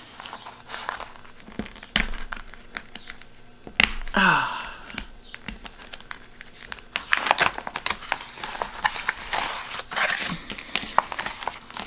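Plastic pocket crinkling and paper cards and sticker sheets rustling as they are handled and pulled out by hand, with scattered sharp clicks and taps.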